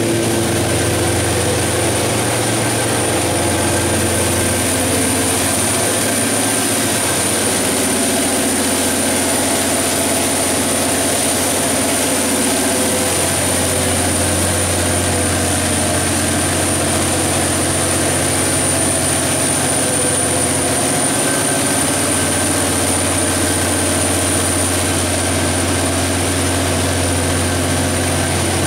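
Detroit Diesel / MTU 12V4000 V12 diesel engine of a 1360 kW generator set running at a steady speed: a loud, even drone with a deep hum and a steady high-pitched whine over it.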